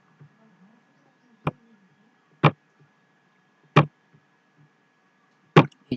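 A computer mouse clicking four times, about a second apart.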